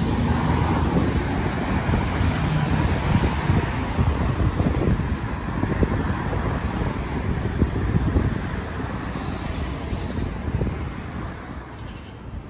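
Road traffic on a city street, with cars and vans passing close by and wind buffeting the microphone. The traffic fades near the end.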